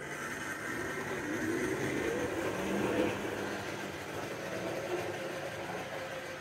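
Model railway train, coaches hauled by a Pannier tank locomotive, rolling along the track: a rumbling with a wavering hum that swells about three seconds in and then slowly eases off.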